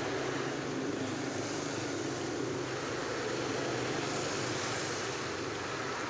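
16-inch scroll saw running steadily, an even mechanical noise with a low hum.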